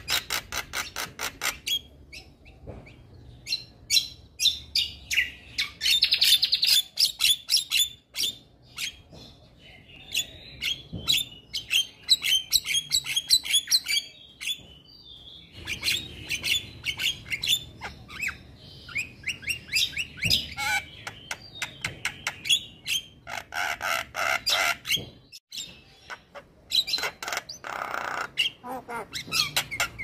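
Male white-eyed Javan myna singing a long, rapid chattering song of clicks and whistled notes, with short pauses, and a few squawk-like calls in the last several seconds.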